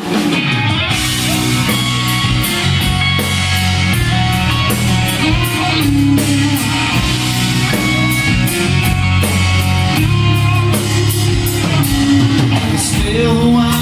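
Rock band playing live: guitar and bass over a drum kit, with cymbals struck at a steady beat.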